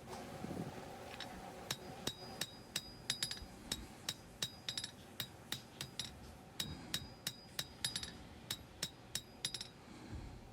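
Hand hammer striking a hot 52100 steel knife blank on the anvil while drawing down the bevels: a steady run of ringing blows, about three to four a second, with a short pause in the middle.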